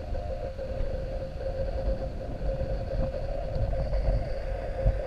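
Wind rumbling on the microphone over a steady, constant-pitch hum.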